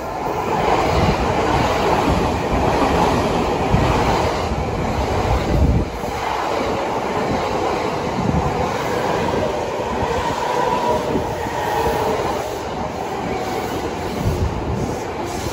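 Electric commuter train passing close by: a steady rumble with the wheels thumping over the rail joints in clusters as each bogie goes over, and a ringing squeal from the wheels on the curve.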